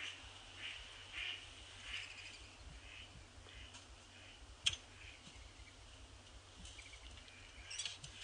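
A bird calling in a series of short, evenly spaced notes, about one every two-thirds of a second, at the start and again near the end, with a single sharp click a little past halfway.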